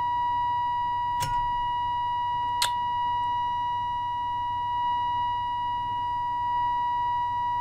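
Steady test tone from the signal generator's modulated signal, reproduced through the 1954 HMV 61-51 valve radio's speaker as its antenna trimmer is peaked during alignment, over a low hum. Two light clicks come about a second and two and a half seconds in.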